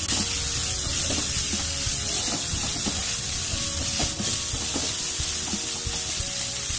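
Chopped cabbage, onion, capsicum and grated carrot sizzling in oil in a hot non-stick frying pan, with a silicone spatula stirring and scraping through them in short irregular strokes over a steady hiss.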